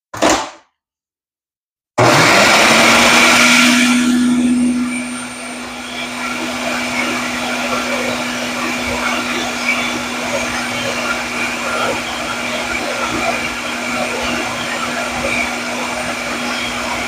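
Ninja countertop blender motor running on a timed program, mixing pie dough as ice water is added until the dough comes together. The motor starts about two seconds in, spins up to a steady hum, and runs loudest for a couple of seconds. It then settles to a slightly lower, even run.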